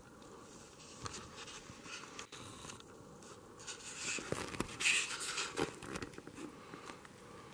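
Faint scraping and crunching of crusty snow and rustling clothing close to the microphone as someone shifts and crouches in snow, loudest for about two seconds around the middle.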